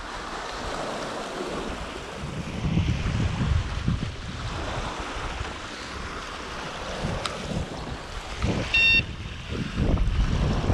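Wind gusting on the microphone over water lapping, rising and falling in rumbles. A single sharp click about seven seconds in, and a short high-pitched tone near the nine-second mark.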